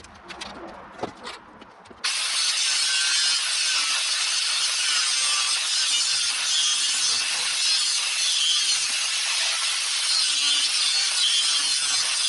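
A power tool cutting, starting abruptly about two seconds in and running steadily, after a few knocks and clatters.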